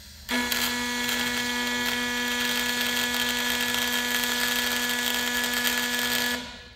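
MIG welding arc burning steadily, a buzzing hum with a hiss over it, starting abruptly and running about six seconds before dying away.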